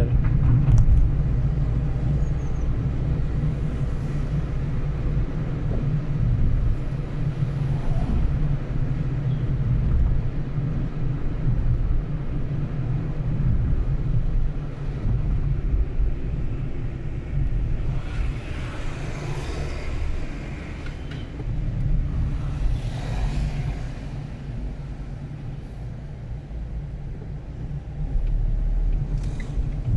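Steady low rumble of road traffic or a car driving. Two louder whooshes of passing vehicles come about two-thirds of the way through.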